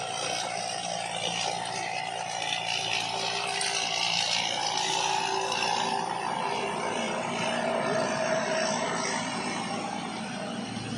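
Combine harvester running steadily, a held whine over the engine and machinery noise.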